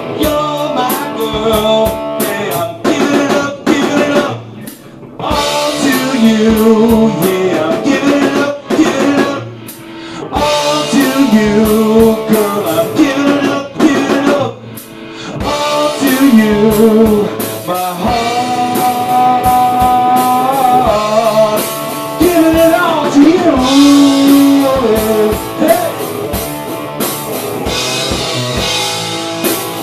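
Rock band playing live: electric guitar over a full drum kit, with a melody line carried on top. The music drops back briefly a few times before building up again.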